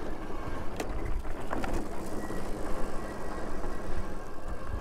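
Super73 electric bike ridden over rough, rutted dirt: a steady low rumble of riding, with a few sharp knocks and rattles as it goes over bumps.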